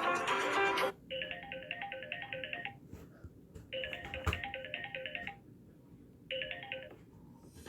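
Samsung Galaxy J7 Prime ringtone: a short electronic melody of rapid high beeps over lower notes, played about three times with short pauses, the last one cut short. In the first second the tail of a louder guitar-based ringtone ends.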